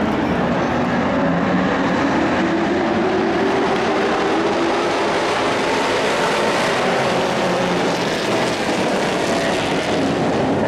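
A pack of dirt-track race trucks with their engines running hard around the oval. The engine pitch rises and falls as the trucks go by.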